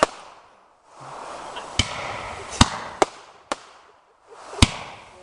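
Aerial fireworks bursting: about six sharp bangs spread across a few seconds, the loudest about two and a half and four and a half seconds in, with hissing crackle from the shells in between.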